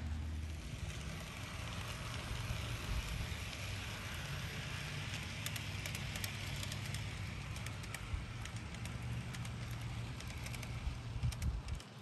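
HO-scale model train rolling along its track: a steady rolling hiss with scattered sharp clicks, in clusters around the middle and again just before the end, over a low, uneven rumble.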